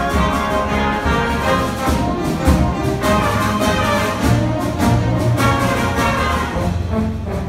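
A school concert band playing a piece in full, woodwinds and brass together over low brass, the notes sustained with no break.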